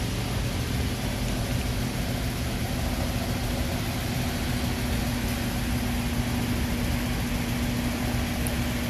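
Steady mechanical hum with a hiss and a constant low tone running through it, unchanging and with no separate knocks or clicks.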